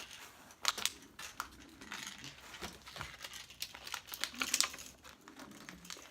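Plastic lure packaging crinkling and crackling as it is handled and torn open by hand, in irregular bursts with a few louder crackles.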